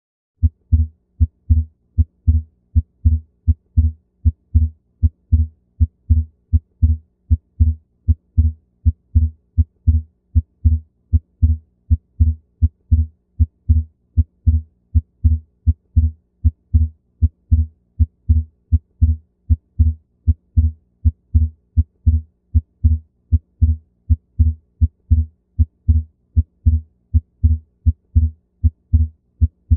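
Heart sounds beating in a steady, regular rhythm, each beat a first sound followed by a second sound heard as two close components that stay split throughout: a fixed split S2, the classic sign of an atrial septal defect. A faint steady hum runs beneath.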